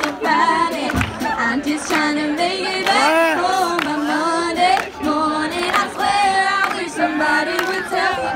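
Two girls singing a pop song into microphones through amplifiers, over a strummed acoustic guitar, played live.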